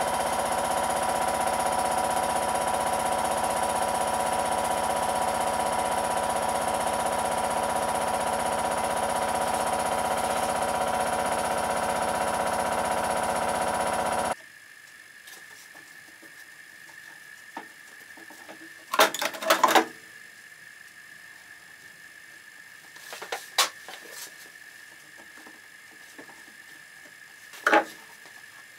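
A workshop machine running with a steady, many-pitched hum, cutting off abruptly about fourteen seconds in. A few sharp knocks follow as shoes and shoe trees are handled on the workbench.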